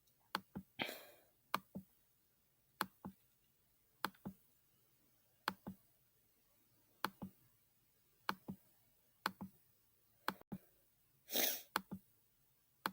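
Faint, sharp clicks from working a computer, mostly in pairs about a quarter-second apart and recurring every second or so, with a soft breath about a second in and another near the end.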